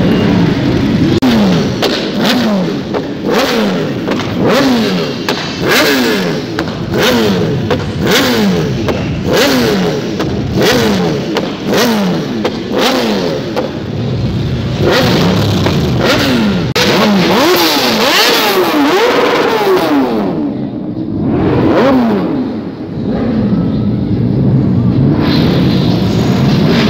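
Sportbike engine revved over and over, the pitch climbing and falling back about once a second, with sharp cracks in between. The revving eases briefly about three-quarters of the way through, then picks up again.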